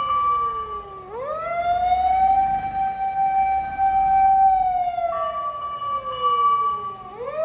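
Japanese aerial ladder fire engine's siren wailing. It rises sharply, holds a long steady note, then slides slowly down and climbs again near the end. A second, steady higher tone sounds alongside while the wail falls.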